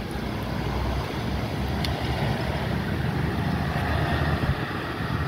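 Steady low engine rumble of a running motor vehicle.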